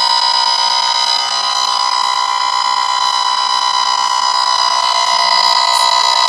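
Cobra XRS 9970G radar detector sounding its alert as one continuous, unbroken electronic tone. It is set off at a toll booth, where the toll equipment's microwave signals commonly trigger false alerts.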